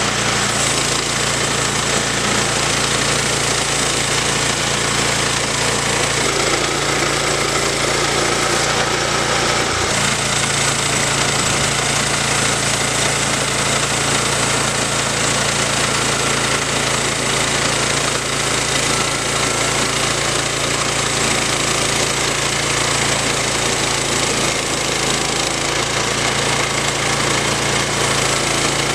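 Woodland Mills HM122 portable bandsaw mill running steadily under load, its gas engine driving the band blade through a log as the head is pushed along the track.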